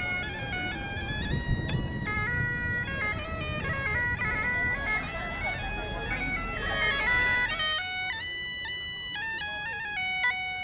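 Intro music: a melody of held notes stepping up and down, over a low rumbling layer that drops out about seven and a half seconds in.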